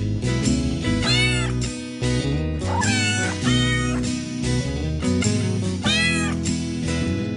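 A tune made of cat meows, each meow arching up and down in pitch, set over a steady music backing track.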